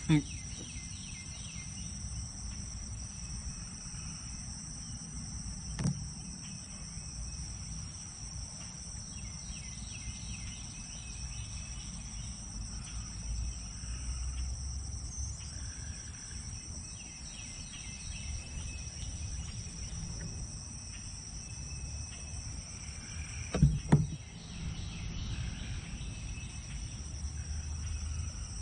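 A chorus of insects gives a steady high drone throughout. There are a few sharp knocks: one about six seconds in and two close together near the end.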